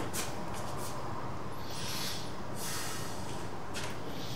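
A man breathing heavily, in slow breathy swells about a second apart over a steady hiss.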